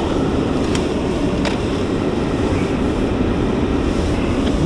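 Steady road and engine noise heard inside the cabin of a car driving on a snowy road, with a few faint ticks.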